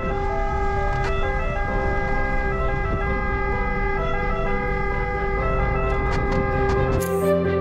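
Ambulance siren sounding over the rumble of the moving vehicle, with music underneath. The rumble cuts off about seven seconds in.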